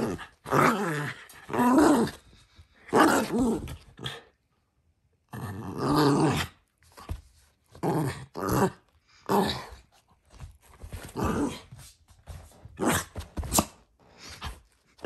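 Small dog play-growling in repeated short bouts while mouthing at a person's hand, with a pause of about a second roughly four seconds in.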